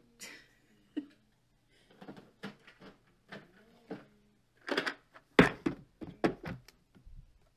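Plastic embroidery-floss storage boxes and bobbins being handled and put away: a run of small clicks and knocks, with a cluster of louder knocks about five to six and a half seconds in.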